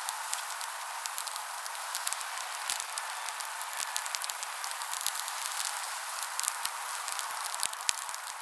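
Steady hiss with many small irregular ticks: light rain pattering on a tarp together with a crackling campfire.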